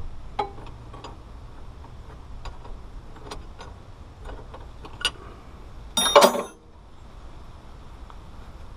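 Hand tools working on hydraulic line fittings: scattered light metallic clicks and taps. About six seconds in, a loud metallic clatter with ringing lasts about half a second.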